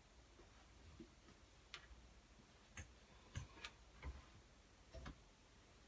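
Near silence broken by about half a dozen faint, irregular clicks and knocks, like small objects being handled.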